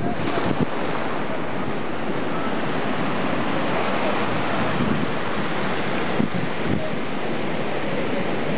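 Surf washing onto a sandy beach: a steady rush of breaking waves.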